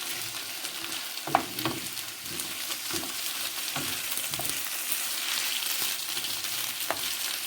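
Drained rice, chicken and chopped vegetables sizzling in oil in a pan while being stirred continuously to toast the rice, with the stirring utensil scraping and knocking against the pan a few times.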